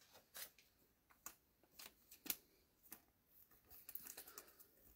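Faint handling of trading cards: a scattering of soft, brief scrapes and flicks as the cards slide against each other, more of them in the second half.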